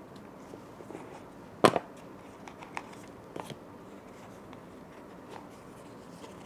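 Small black jewelry box being handled and opened: one sharp click about a second and a half in, then a few lighter clicks and taps as the lid and insert are worked.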